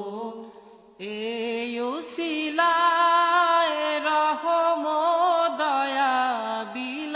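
A devotional song on the soundtrack: a single voice singing slow, ornamented long-held notes with a wavering pitch, starting again about a second in after a brief pause.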